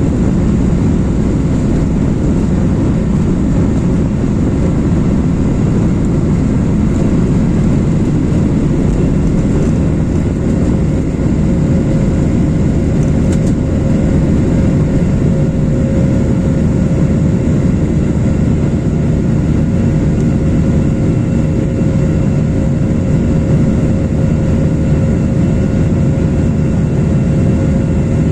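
Boeing 737-800's CFM56-7B turbofan engines at takeoff power: a loud, steady rumble with a faint steady whine over it.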